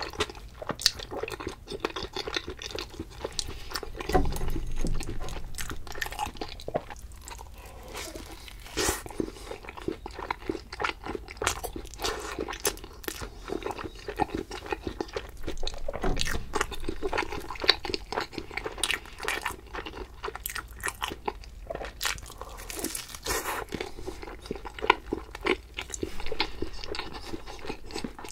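A person biting and chewing food close to the microphone, with crisp crunching and wet chewing clicks throughout.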